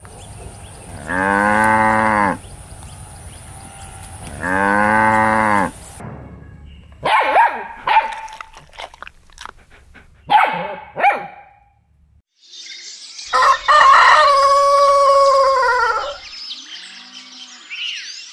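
A calf mooing twice. Then a puppy gives several short, high yelps. Then a rooster crows once, a long call.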